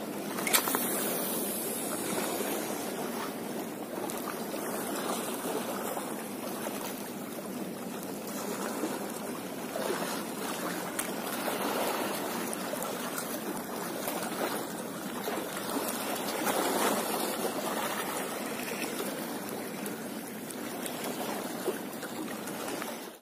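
Steady wash of seawater lapping against the shore, an even rushing with no clear rhythm.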